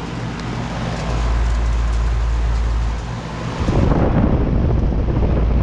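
2012 Bryant Legacy Line two-and-a-half-ton central air conditioner's outdoor condensing unit running just after startup: a steady compressor hum under the whoosh of the condenser fan. From about three and a half seconds in, uneven low rumbling from wind on the microphone joins it.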